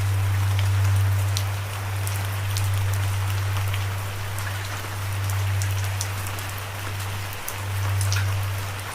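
Steady rain falling, an even hiss with individual drops ticking sharply here and there, over a loud steady low droning note that dips briefly near the end.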